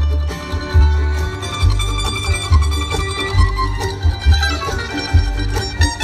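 Live bluegrass band playing an instrumental on fiddle, banjo, mandolins, guitar and upright bass, heard from the audience in a large hall. The bass thumps a steady beat about twice a second under the plucked strings.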